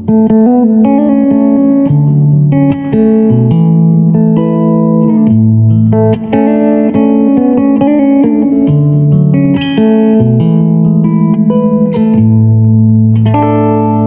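Ibanez Prestige S5470F electric guitar played through an amplifier: a flowing passage of sustained notes that change every half second or so over ringing low notes, with a chord struck and left to ring near the end.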